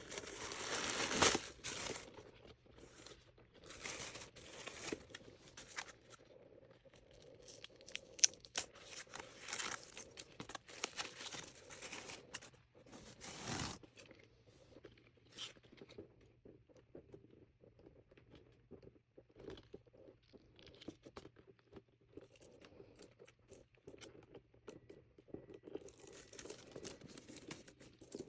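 Packaging being handled, crinkled and torn open during an unboxing. It comes in several rustling bursts, with scattered small clicks and handling noises in the quieter stretch between.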